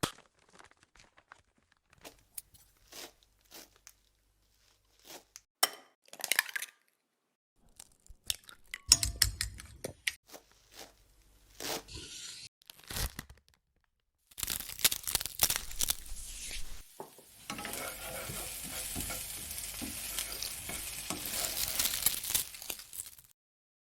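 Cooking sound effects: scattered taps, knocks and rustles of food being prepared, then a quick run of clattering strikes. Then food sizzling steadily in a frying pan, which stops shortly before the end.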